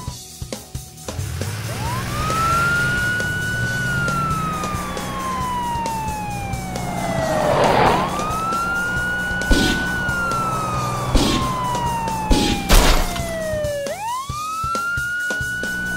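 Police siren wailing in slow cycles: each wail climbs quickly, holds, then slides down over several seconds, with the next one starting again about a second in, eight seconds in and near the end. It plays over background music, with a few sharp bangs in the second half.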